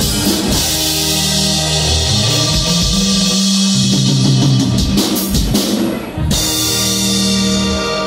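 Dance music with a drum kit and a bass line, playing loudly for the dancers; the drums break briefly about six seconds in, then the music carries on.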